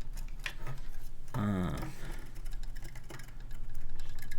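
Scattered small clicks and taps as the parts of a split mechanical keyboard kit are handled. A short murmur from a voice comes about a second and a half in, over a low steady hum.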